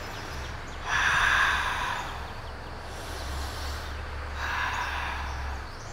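A woman breathing: a strong breath about a second in and a softer one about four and a half seconds in, over a steady low hum.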